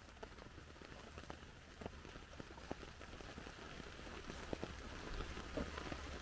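Steady rain with scattered drops ticking individually, growing a little louder toward the end.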